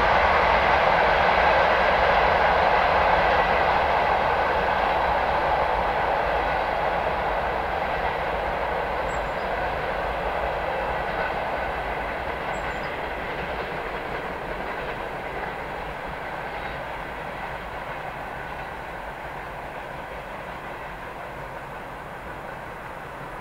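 Freight train behind a 2M62K diesel locomotive rolling away over the rails, its wheel and rail noise fading steadily as the wagons move off into the distance.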